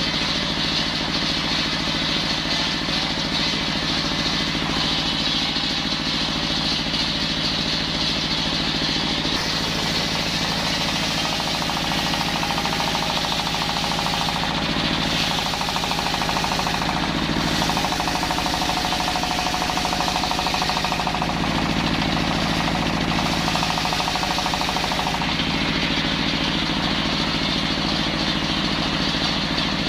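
Engine-driven circular saw running steadily. From about nine seconds in until about twenty-five seconds the sound turns brighter and hissier with a held whine as the blade cuts through wood, then it settles back to free-running.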